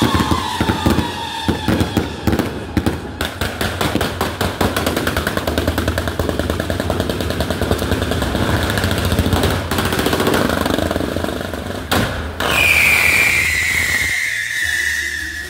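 Daytime fireworks barrage: a dense run of rapid crackling and banging for about twelve seconds, then a loud whistle from whistling rockets that slowly falls in pitch near the end.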